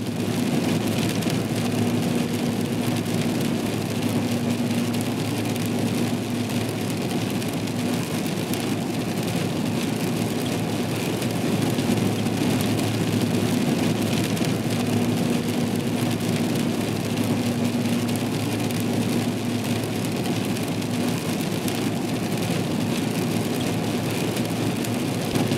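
Steady rain noise over a vehicle's engine running, with a constant low hum underneath.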